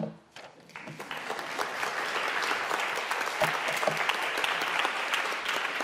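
A room of people applauding: many hands clapping, swelling in over the first second and then holding steady.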